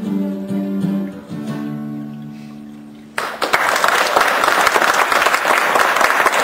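Acoustic guitar's final chords ringing and slowly fading. About three seconds in, the audience breaks into loud, steady applause.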